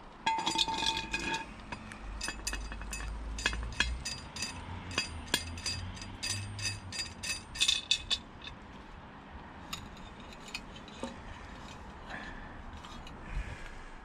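Sharp metallic clinks and taps from a nail-on bricklayer's G-clamp being handled and fixed to brickwork; the first strikes ring briefly. The taps come in an irregular run for about eight seconds, then only a few scattered clicks.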